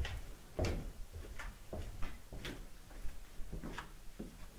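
Footsteps of one person walking away at an even pace, about two steps a second.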